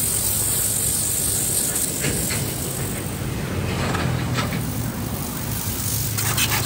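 Small 0.75 kW single-phase electric pressure washer with a ceramic-plunger pump running under load, its motor and pump humming steadily while the high-pressure jet hisses against concrete. The spray hiss gets louder near the end.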